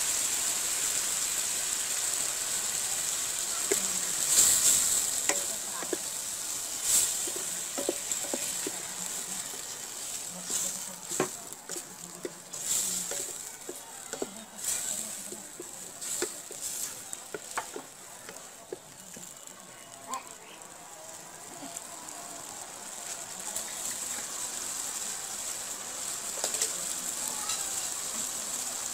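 Curry sizzling in a stainless steel kadai, a steady hiss, while a spatula stirs and scrapes against the pan in a run of short clicks and knocks, thickest through the middle.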